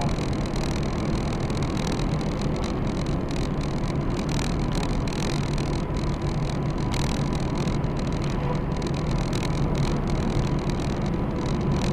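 Steady driving noise of a car cruising at about 85 km/h, heard inside the cabin: a constant low rumble of engine and tyres with a faint steady whine.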